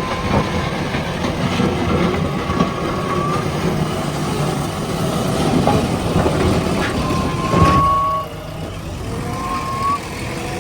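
JCB 3DX backhoe loader's diesel engine working under load, with short high-pitched whines three times and a few sharp knocks. The engine note drops just after the longest whine, about two thirds of the way in.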